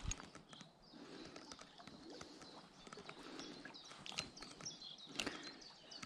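Faint songbirds chirping, with a few sharp clicks, the clearest at the start and about five seconds in.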